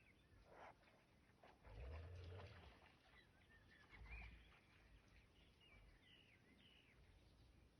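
Faint outdoor ambience: small birds chirping softly in short calls, with two brief low rumbles about two and four seconds in.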